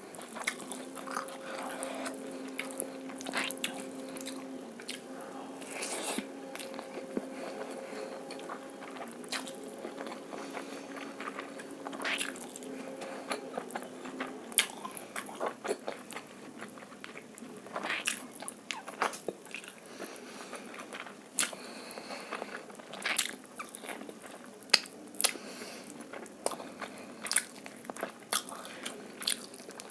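Close-miked chewing and biting of egg fried rice and chilli chicken, with frequent sharp mouth smacks and clicks. A steady low hum sounds through roughly the first half, then stops.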